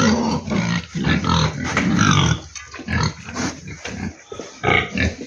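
A gilt (young sow) calling out loudly in irregular grunts and squeals for about two and a half seconds, then quieter bursts. This is typical of a pig reacting while being given an intramuscular injection.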